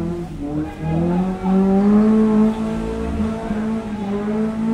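Off-road 4x4 engine revving high and hard under load, its pitch rising and falling in steps as the throttle changes.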